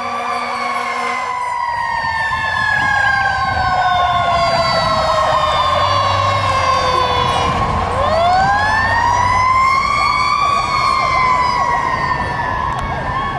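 Fire engine siren wailing as Engine 39, a Spartan pumper, responds. The pitch falls slowly over about eight seconds, is wound back up quickly, then falls again near the end.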